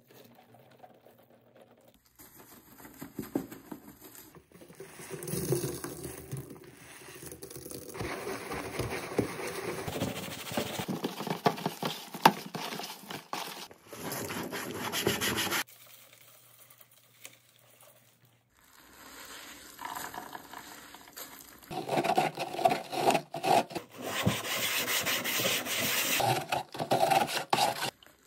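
Soapy scrub sponge rubbing and scraping on the plastic of a spin mop bucket, in long stretches of back-and-forth scrubbing. It is quiet for the first couple of seconds and eases off in a short lull a little past the middle.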